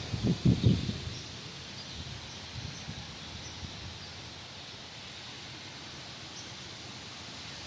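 Quiet outdoor ambience: a faint steady hiss with a few short, faint high chirps. Wind buffets the microphone in low rumbling gusts within about the first second.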